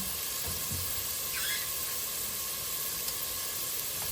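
Onions sautéing in oil in a pan, a steady sizzle, with a brief faint squeak about a second and a half in.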